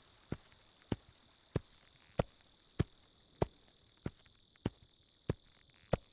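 Synthesized night-forest insect ambience: cricket-like chirps in short groups of rapid high pulses, over a steady run of sharp ticks about every 0.6 seconds.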